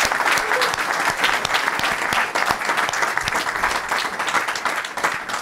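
Audience applauding, many hands clapping in a dense patter that eases off slightly near the end.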